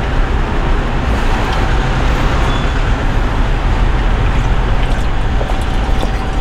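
Steady, loud rumbling background noise with a faint steady hum tone running through it.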